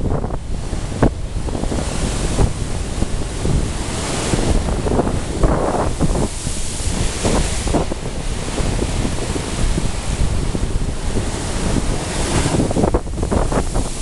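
Stormy Caspian Sea surf breaking and washing over shoreline rocks, a continuous hiss of foam that swells in several surges as waves hit, with heavy wind rumbling on the microphone.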